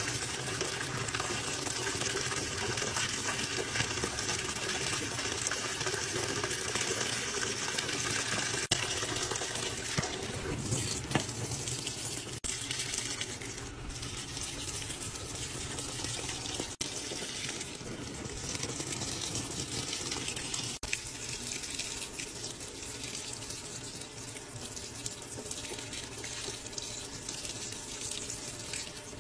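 Water pouring from the fill inlet into a top-load washing machine's drum as it fills, a steady splashing rush onto suds and clothes. The sound shifts a little partway through.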